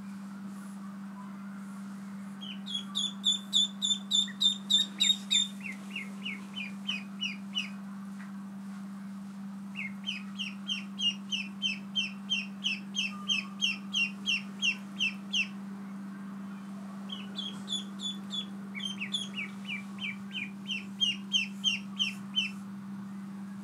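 Ducklings peeping in fast runs of short, high peeps, about four to five a second, in three bouts, with one bird's peeps higher-pitched than the other's. A steady low hum runs underneath.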